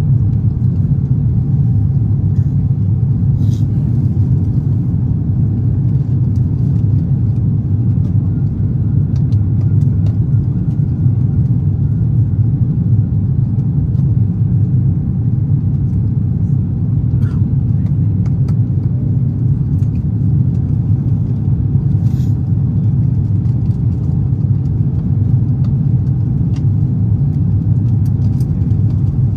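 Steady low cabin drone of an Airbus A350-900 in the climb after takeoff: engine and airflow noise heard from inside the passenger cabin, with a few faint clicks.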